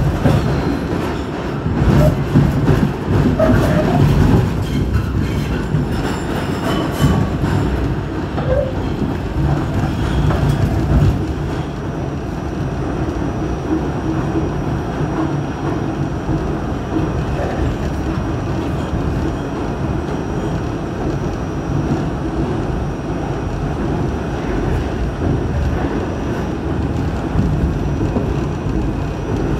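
New York City subway B train running through a tunnel, heard from inside the car: a steady low rumble of wheels on rails, with many sharp clicks through the first ten seconds or so, then evening out.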